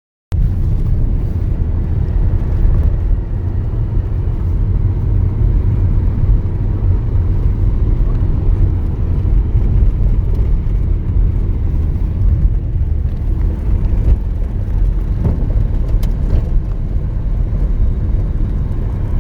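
Loud, steady low rumble of a moving vehicle, starting abruptly just after the start.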